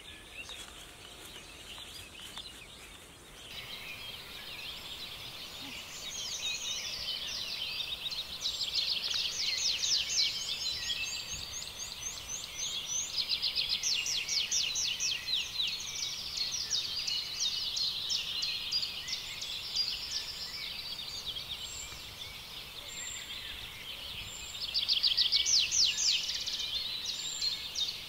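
Small birds singing in rapid trills: runs of quick, high, falling notes repeated in bursts. They start about three seconds in and are loudest near the middle and again near the end.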